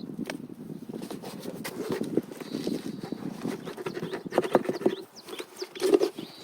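Potting soil being scooped and poured in around a peach tree sucker, a steady grainy rustle and patter of soil with scraping, and a few louder knocks in the last two seconds.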